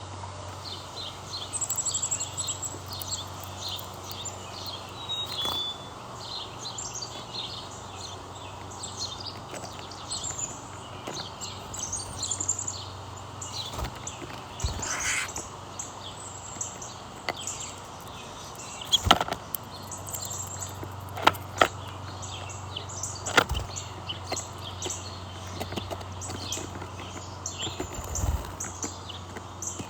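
Small birds chirping and calling, many short high notes throughout, with a few sharp knocks or taps over a steady low hum.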